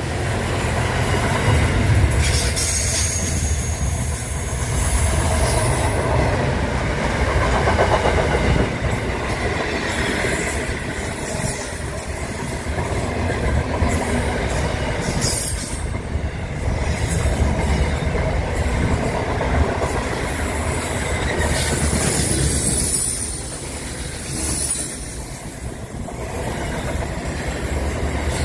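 Freight train of container and tank-container wagons rolling past: a steady rumble of steel wheels on the rails, with thin high-pitched wheel squeal coming and going.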